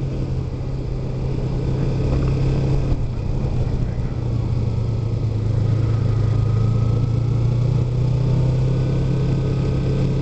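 Kawasaki Ninja 250's parallel-twin engine running steadily while the motorcycle cruises in traffic, its pitch dipping slightly about three to four seconds in and then holding, over road and wind noise.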